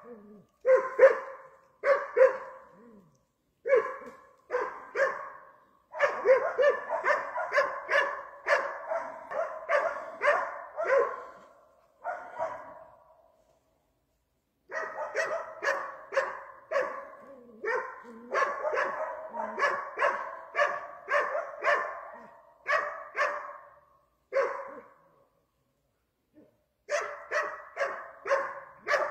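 Hunting dog bay-barking at wild boar, holding them at bay: short sharp barks in fast runs of two or three a second, breaking off twice for a couple of seconds.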